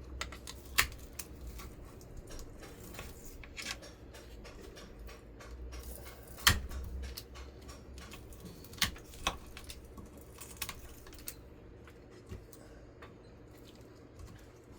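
Irregular metallic clicks and clinks of hand tools gripping and prying copper winding out of a ceiling fan motor's stator, with a louder sharp knock about a second in and another around six and a half seconds.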